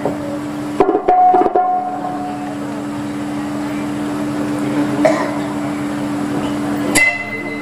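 Stage accompaniment music: a few drum strikes about a second in, over a low steady held tone, with another strike near the end.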